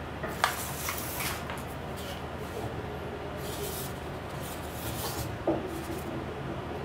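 Handling noise from a white plastic earbuds charging case being picked up off a table and turned in the hand. There are two sharp clicks, one near the start and one about five and a half seconds in, with soft rubbing and scraping between.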